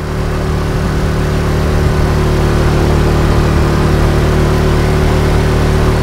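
Motorcycle engine running steadily under load while climbing a hill road, its note swelling slightly in the first second.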